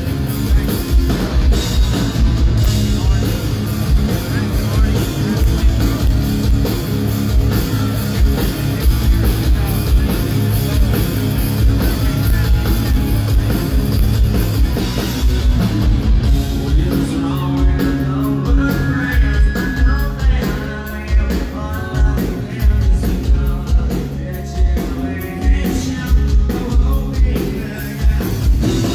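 A live rock band playing loud through a PA: electric guitar and drum kit, with a lead singer's voice coming through clearly in the second half.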